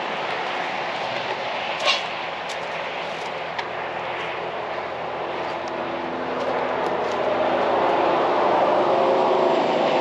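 Kioti CK2610 compact tractor's diesel engine running steadily, growing louder about six seconds in, with a single sharp knock about two seconds in.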